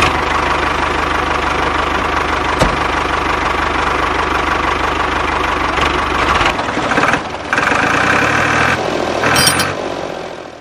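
An engine running steadily. About two-thirds of the way through, its deep low hum drops away and the sound changes, then it fades out near the end.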